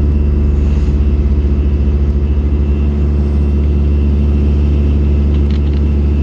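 Excavator diesel engine running steadily at a constant speed, with a deep, even hum.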